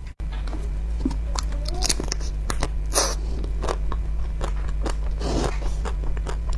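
Crunching bites into the hard coloured coating of ice cream bars, a run of sharp irregular cracks with a few longer crunches and some chewing, over a steady low hum.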